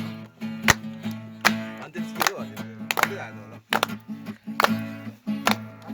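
Guitar strummed in a steady rhythm, about one strum every three-quarters of a second over ringing chords, accompanying a Nepali folk song between sung lines.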